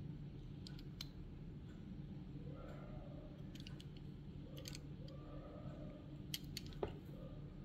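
Faint, scattered light clicks and taps from a 1:64 die-cast model car being handled, over a low steady room hum.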